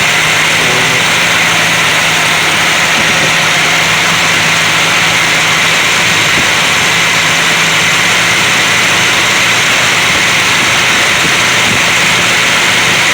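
Mopar 383 big-block V8 running steadily on freshly fitted NGK iridium spark plugs, burning off excess deposits left in some cylinders.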